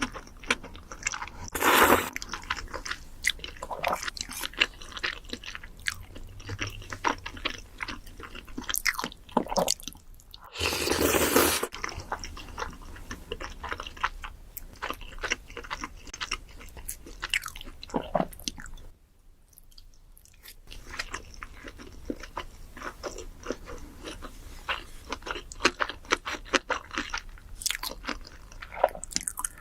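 Close-miked eating: crunchy bites and wet chewing of food, a dense run of irregular crackles and clicks, with loud crunching bites about 2 seconds and 11 seconds in and a short pause in the chewing around 19 seconds in.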